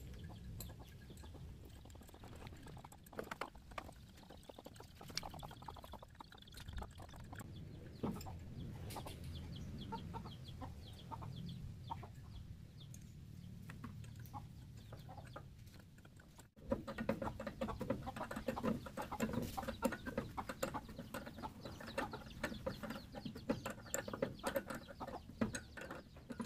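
Chickens clucking, with scattered light clicks and taps from hand tools on the machine. About sixteen seconds in there is a brief dropout, after which the clucking and tapping come thicker.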